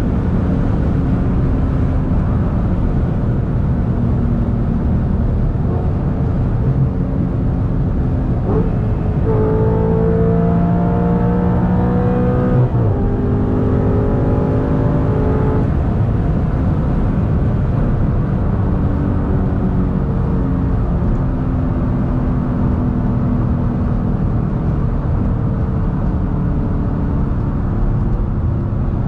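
The 2009 Audi R8's 4.2-litre V8 running at cruising speed. About a third of the way in it is pulled hard: the engine note rises, drops sharply at an upshift, then rises again before settling back to a steady drone.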